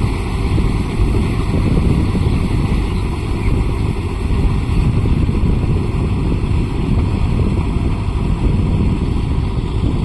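Mahindra Yuvo Tech Plus 575 DI tractor's diesel engine running steadily, heavily mixed with wind rumbling on the microphone.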